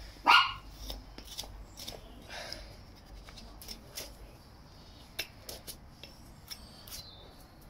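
Hoof knife cutting loose flaps of frog from a horse's hoof: a scatter of short slicing clicks and scrapes, with one louder rasping stroke near the start.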